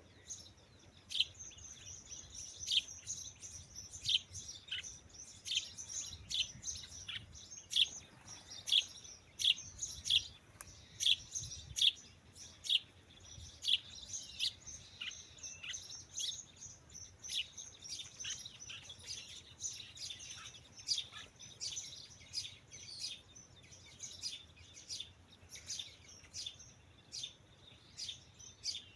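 Birds chirping continuously: short, high, sharp calls at about one or two a second, some overlapping.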